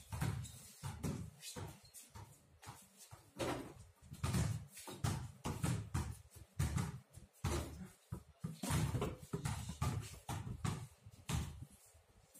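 Several basketballs being dribbled on a paved court, their bounces overlapping in an uneven run of thuds.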